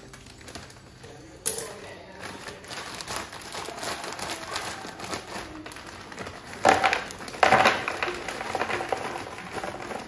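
Plastic bag of frozen French fries crinkling as it is opened and tipped, with a sharp crackle about a second and a half in. Two louder bursts of rustling come about seven seconds in as the frozen fries tumble into a plastic storage box.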